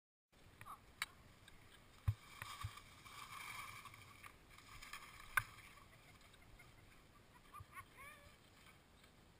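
Faint on-slope sound of skis and ski gear on snow: a few sharp knocks, the loudest about two and five seconds in, over a low rushing noise that swells briefly around three to four seconds.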